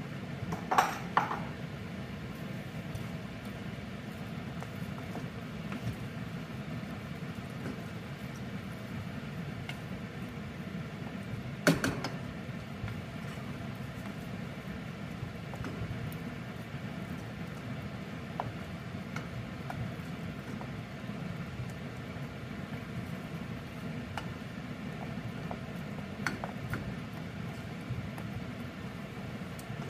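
A wooden spatula stirring a thick jaggery and broken wheat mixture in a stainless steel pressure cooker, knocking sharply against the pot a couple of times about a second in and once loudly near the middle, with fainter scrapes and ticks. A steady low rumble runs underneath.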